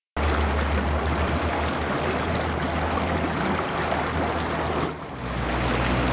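Motor boat under way on calm water: a steady low engine hum under the rush of water along the hull and wake. About five seconds in the sound dips briefly and gives way to the on-board sound of the same run, with engine hum, wind and wake.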